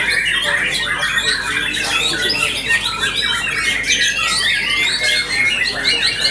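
White-rumped shamas singing in competition: many birds at once in a dense, unbroken tangle of rapid chirps, trills and whistles.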